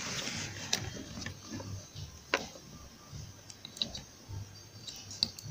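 Scattered light clicks and taps of plastic as a white USB phone charger cable and its connectors are handled, the sharpest about two seconds in, over a faint low hum.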